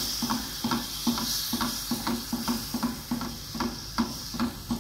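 Spatula stirring and scraping a pan of butter-and-flour roux about three times a second as milk is poured in for white sauce, over a steady sizzle from the hot pan.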